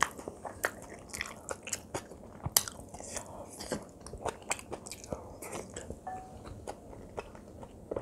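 Close-miked chewing of kimchi fried rice, soft and wet, with many short clicks and smacks. A spoon clicks and scrapes against the plate while scooping, and there is a brief ringing clink about six seconds in.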